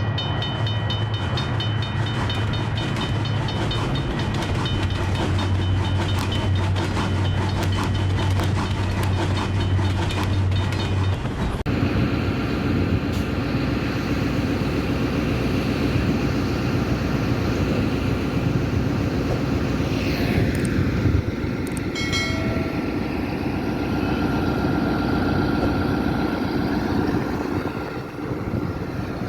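Green Line express train passing at speed, its wheels clattering in a fast run of clicks over a low hum. About eleven seconds in, the sound changes abruptly to a steadier rushing noise, and a falling tone sweeps down around two-thirds of the way through.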